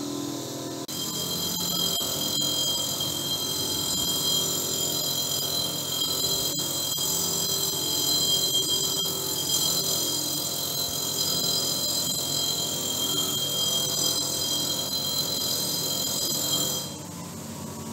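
Bench grinder spinning a wire brush wheel with a brass candlestick piece pressed against it: a steady scraping hiss over a high-pitched whine. Near the end the scraping stops and only the motor's lower hum is left.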